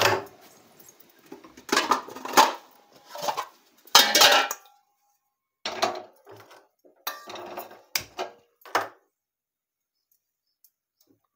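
Metal cooking pots, a frying pan and utensils clinking and knocking against each other and the stove as they are handled and set on a gas stove. It comes as a series of separate short clatters that die away about nine seconds in.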